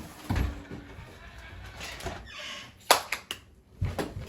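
Cardboard box and a boxed electric scooter being handled as the scooter is pulled out: a dull thump at the start, a short scraping rustle about two seconds in, then a quick cluster of sharp knocks about three seconds in and one more near the end.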